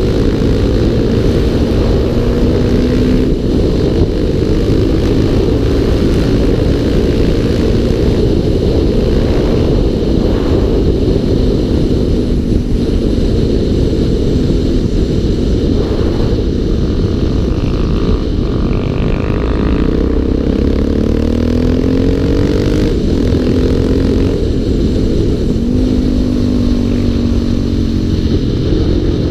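Single-cylinder four-stroke dual-sport motorcycle engine running at speed, its pitch rising and falling again and again with throttle and gear changes. It sits over a steady rush of wind noise on the bike-mounted camera.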